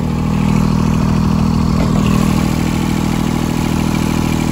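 John Deere 455 garden tractor's liquid-cooled three-cylinder Yanmar 3TNA72 diesel engine running steadily, a little louder after the first half second.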